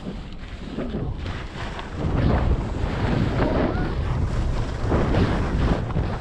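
Wind buffeting the microphone of a camera on a moving skier, over the hiss and scrape of skis running on packed snow. It gets louder about two seconds in.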